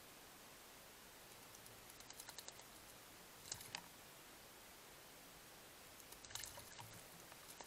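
Male Eurasian blackbird bathing in a shallow pond, flicking and splashing water with its wings in short faint bursts: a quick run of flicks about two seconds in, a sharper splash about three and a half seconds in, and a longer flurry near the end.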